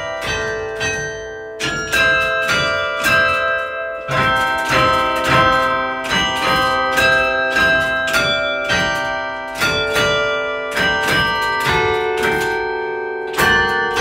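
Church tower bells played by hand from a lever clavier, ringing out a melody note by note, about two strikes a second, each bell ringing on under the next.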